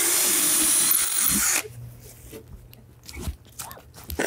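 Power drill boring a pilot hole through plywood, running at full speed for about a second and a half and then stopping, followed by a few faint knocks.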